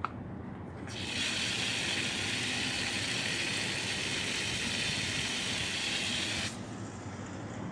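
Water spraying from a nozzle in a steady hiss that starts abruptly about a second in and cuts off sharply near the end.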